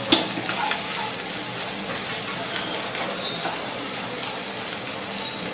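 Sliced bitter gourd with onions frying in oil in a pan, a steady sizzle, with one sharp click at the start.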